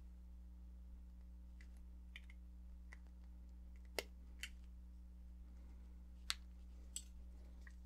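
Flush cutters snipping the ends of 20-gauge nickel silver wire: a few short sharp clicks, the loudest about four and six seconds in, with fainter ticks of the tools between, over a faint steady hum.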